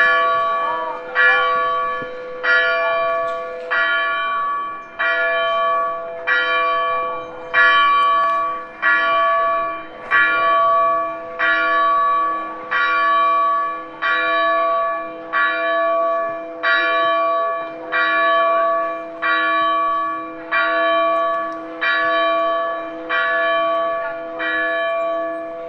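Church bell struck over and over at an even pace, a little more than one stroke a second. Each stroke rings on into the next, so the bell's hum never dies away between strokes.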